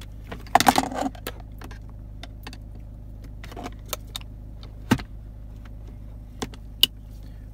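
A metal screwdriver tip scraping and clicking against the hard plastic trim collar at the base of a gear knob as it is pried up. A short burst of scraping comes about half a second in, then single sharp clicks every second or so, over a steady low hum.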